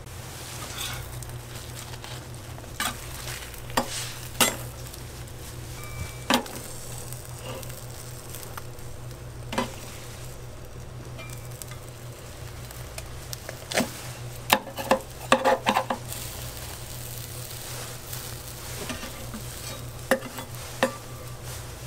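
Crepe griddle sizzling steadily, with scattered sharp clicks and knocks and a quick run of them about two-thirds of the way through.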